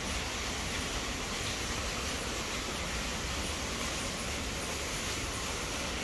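Waterfall: a steady, even rush of falling water with a low rumble underneath.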